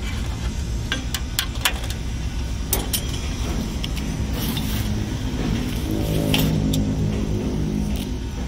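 Small metal parts clink a few times, sharp and light, through the first three seconds or so. Beneath runs a steady low rumble of nearby traffic and engines. About six seconds in a vehicle engine swells up briefly and then fades.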